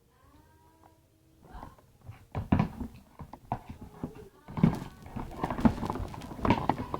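Close-miked chewing and mouth smacking of someone eating fried banana fritters: irregular wet clicks and smacks that start about two seconds in.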